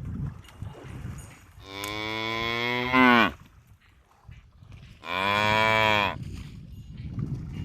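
Buffalo lowing: two long moos, the first about a second and a half long, rising in pitch near its end before breaking off, the second shorter and steadier.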